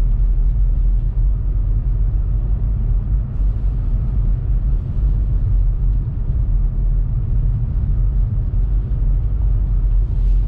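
Steady low rumble of a 2018 Honda Civic Turbo Sport hatchback driving on a snowy road, heard from inside the car. It is mostly tyre and road noise from its General mud-and-snow tyres.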